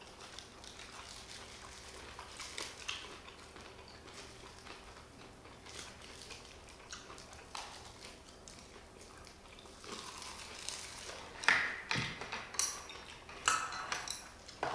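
Close-miked eating sounds: chewing and mouth noises while rice is eaten, with spoons and chopsticks clicking against the bowls, the loudest clicks coming about two-thirds of the way in.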